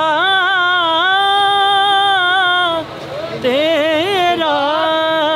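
A man reciting a naat unaccompanied: long held, wavering melodic notes, a short break for breath about three seconds in, then the line resumes with more ornamented turns.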